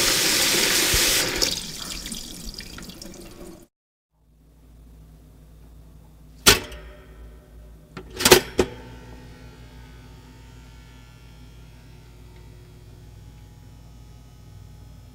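Chicken masala sizzling in an aluminium cooking pot, a loud steady hiss that fades over the first few seconds and stops. After a short gap come three sharp metal clinks, the first about six seconds in and two more close together a couple of seconds later.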